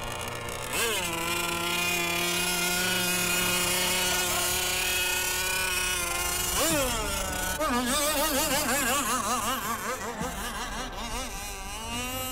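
Radio-controlled racing boat's motor giving a high, buzzing whine: it holds a steady pitch, revs up sharply about six and a half seconds in, then wavers up and down in pitch as the boat runs across the water.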